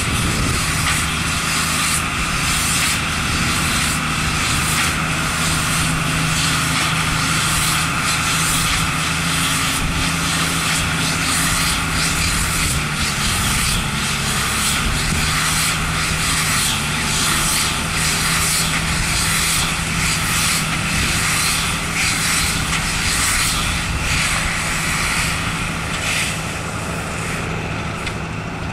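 Valtra tractor engine running steadily under load as it pulls baling and wrapping machinery through the field, with a regular, evenly spaced clatter from the machine's moving parts. The sound fades a little near the end as the rig moves farther off.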